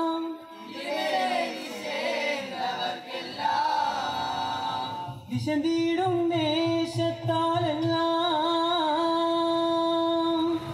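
Male voices singing a Vattappattu song unaccompanied, in the long held notes and melodic runs of Mappila song. A soft, low rhythmic pulse sits under the singing from about four seconds in.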